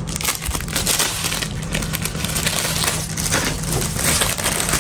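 Plastic packaging crinkling and crackling as it is handled and pulled open, with a steady low hum underneath.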